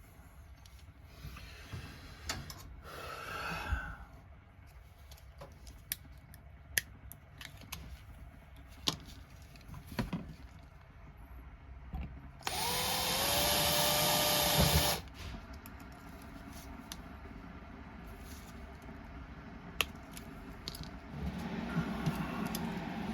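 Small electric drill spins up and runs for about two seconds, the loudest sound, with scattered sharp clicks of small parts being handled around it. Near the end a steadier low hum starts.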